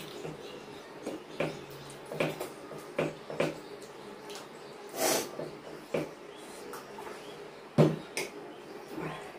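Two people eating rice and curry with their hands from steel plates: irregular mouth smacking, chewing and the squish of fingers mixing rice, with a sharp knock on a plate about eight seconds in.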